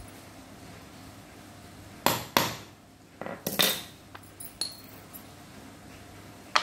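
Sharp metal knocks and clinks of small snap-fastener tools and parts on a hard work board: two ringing knocks about two seconds in, a quick cluster a second later, a light click, and one more sharp knock at the end.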